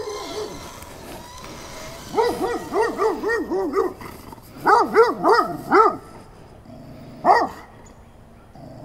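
A loose dog barking at a stranger in two quick runs of several barks each, then a single bark near the end; the man it barks at takes it for a little aggressive.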